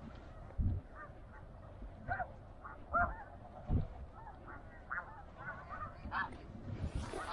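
Snow geese calling: many short, high-pitched honks overlapping from several birds. A few dull low thumps stand out above them.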